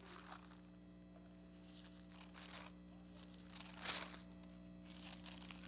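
Thin Bible pages being turned, a few soft paper rustles with the strongest nearly four seconds in, over a faint steady low hum.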